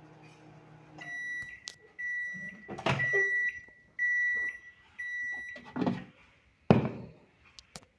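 Microwave oven running with a low steady hum that stops about a second in, then beeping five times, about once a second, as its cycle ends. Several clunks fall among the beeps, the loudest near the end.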